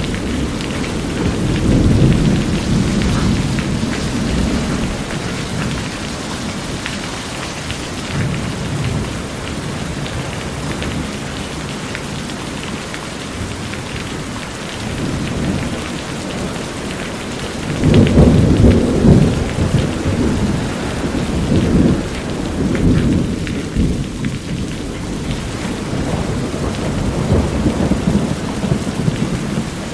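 Steady heavy rain falling on a house roof, with thunder rumbling in repeated low swells, the loudest about eighteen seconds in.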